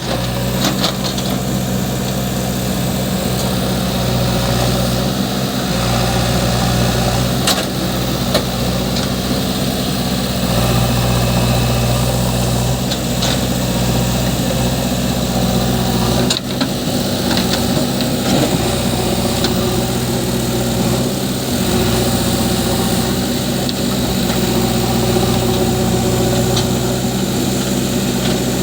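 Heavy diesel machinery, a backhoe loader and a tractor, running steadily. The engine note shifts every few seconds, with a few sharp knocks.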